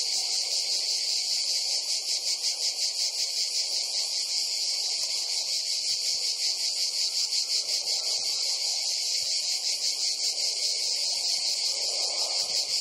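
A steady chorus of insects: a dense, high-pitched buzz that pulses rapidly and runs on unbroken.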